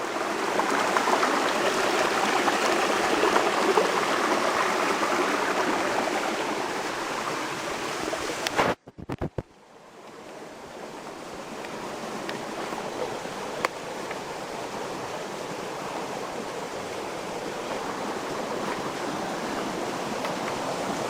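Water of a small mountain stream running over rocks, a steady rush. About nine seconds in it breaks off briefly, then carries on fainter, slowly getting louder.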